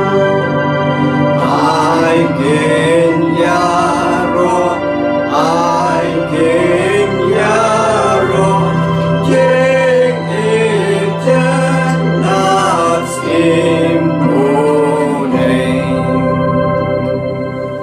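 A hymn sung to organ accompaniment: sustained organ chords over a steady bass, with a sung melody above.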